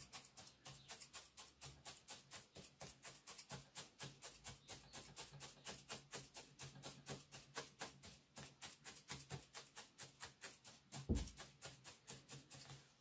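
Felting needle repeatedly stabbing into wool, a fast, even run of soft pokes at about four or five a second, with one louder thump about eleven seconds in.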